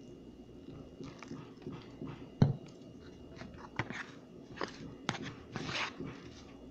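A metal spoon stirring and scraping moist instant mashed potato in a plastic bowl: irregular crunchy, squishy scrapes, busier in the second half, with one sharp knock about two and a half seconds in.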